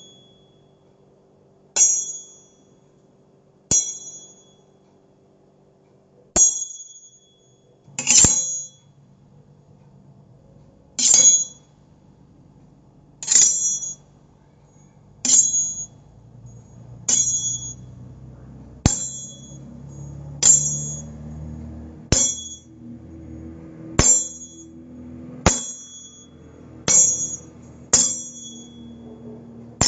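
A series of metallic blade 'shing' sound effects, like a knife or sword blade ringing, each a sharp hit with a short high ring, repeating about every one and a half to two and a half seconds. A faint low drone sits beneath and swells in the second half.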